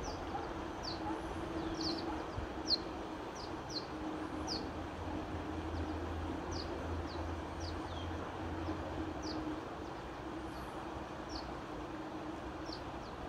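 Shallow mountain river rushing over rocks in a steady wash, with a small bird repeating short, high, down-slurred chirps every half second or so.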